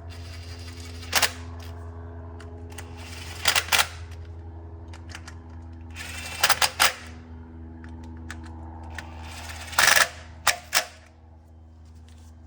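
Hand ratchet with a 10mm socket clicking in four short bursts as the ignition coil hold-down bolts are run in and snugged, over a steady low hum.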